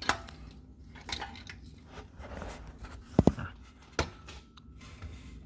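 Scattered handling clicks and knocks, with two sharp thumps in quick succession about three seconds in, as a work light is moved around under the car.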